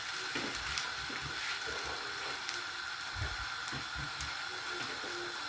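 Faint steady sizzle with scattered small crackles: a chapati cooking in a lightly oiled frying pan.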